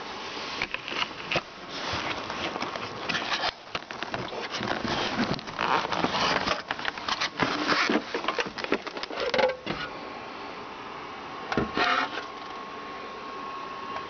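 Hand handling of a plastic humidifier housing being pulled out of a cardboard box: irregular scraping, knocking and rustling of plastic against cardboard for about ten seconds. A brief few knocks near the end. A faint steady hum runs underneath.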